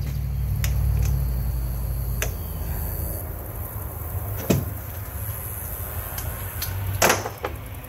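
Scattered clicks and knocks of hand tools and metal parts being handled on a UTV engine, the loudest about halfway through and near the end, over a low rumble that fades after about two seconds.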